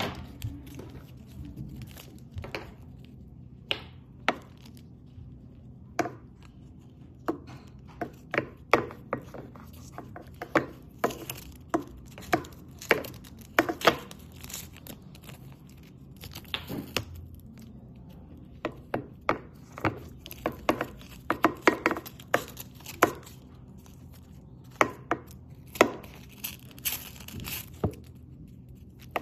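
Irregular crackling and sharp clicks as a thin white plastic strip is handled and pulled by hand, over a faint steady hum.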